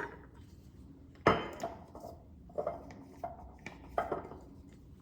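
Kitchen utensils and dishes clinking and knocking: about six separate sharp clinks, the loudest a ringing one just over a second in.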